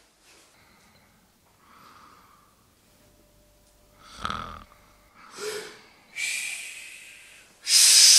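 A sleeping man snoring, starting about four seconds in: a rough, rumbling snore, then a shorter one, then a long wheezing breath with a faint whistle. A loud, harsh hissing burst comes near the end and is the loudest sound.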